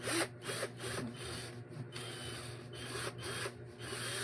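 Handling noise from a plastic-bodied cordless drill turned over in the hands: a string of short scraping rustles, about two or three a second, over a steady low hum. The drill's motor is not running.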